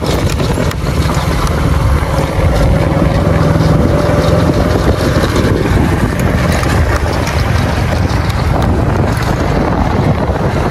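Motorcycle ride: wind rushing over the microphone, with the bike's engine running underneath.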